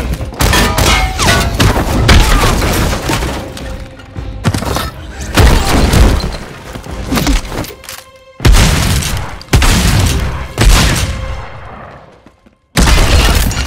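Fight-scene sound effects: a dense run of heavy thuds, booms and crashes with shattering, over dramatic music. The sound drops away briefly twice, the second time to near silence shortly before the end, before the hits start again.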